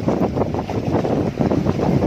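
Wind buffeting the microphone: a loud, uneven low rumble that rises and falls without a break.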